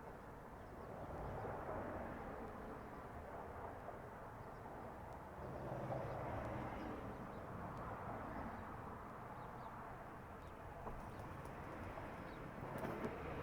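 Outdoor street traffic noise: a low rumble of passing vehicles that swells and fades a couple of times.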